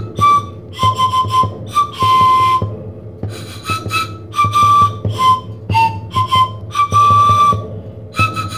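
Intro music: a high, whistle-like melody of short notes, a few held longer, over a low steady pulse.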